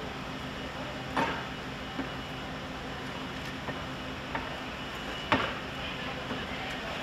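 Sharp knocks and clinks of roof tiles being struck and prised loose with a firefighter's hand tool, about five irregular knocks with the loudest about five seconds in, over a steady low machine hum.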